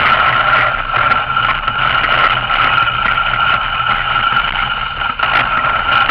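Steady rushing noise of a dog sled moving over snow, heard from the sled, with a constant hum and scattered faint knocks.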